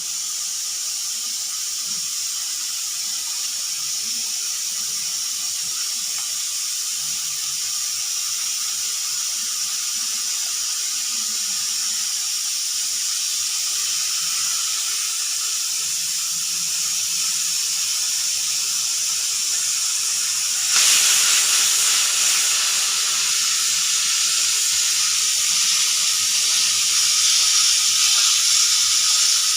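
Pressure cooker whistling: steam hissing hard out through the weighted whistle valve on top, a steady high hiss with no clear tone. About twenty seconds in it suddenly gets louder as more steam rushes out, and it stays at that level.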